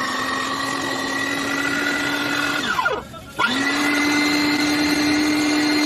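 Dessini Italy 3000W electric meat grinder's motor running with a steady whine, switched off about two and a half seconds in so its pitch falls away, then switched back on half a second later and spinning straight back up to a steady whine.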